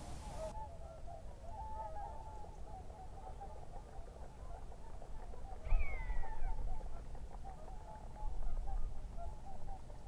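A buzzard gives one high, falling call about six seconds in, over a steady background of many distant bird calls. A low rumble comes up with the call and again near the end.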